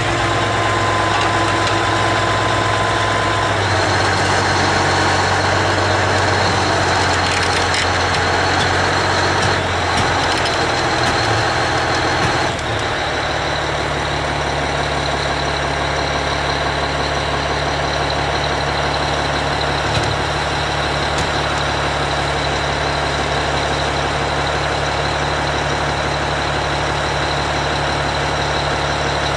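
Komatsu D475A crawler bulldozer's large diesel engine running steadily under a steady high whine. Its speed shifts twice, a few seconds in and again about twelve seconds in.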